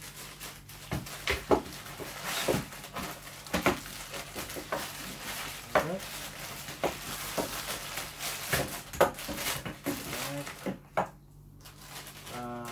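Thin plastic packaging bag crinkling and rustling as a camera tripod is pulled out of it, with scattered sharp clicks and knocks of the tripod being handled on a wooden table.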